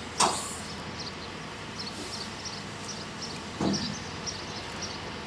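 Two sudden clanks of metal parts being handled inside a welder-generator's engine bay while the fuel-water separator is taken off: a sharp one just after the start and a duller one about three and a half seconds in. Short high chirps repeat steadily behind them.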